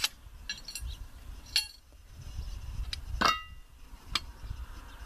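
Steel anvil parts clinking as they are handled and set down: four sharp metallic clinks, the third ringing briefly.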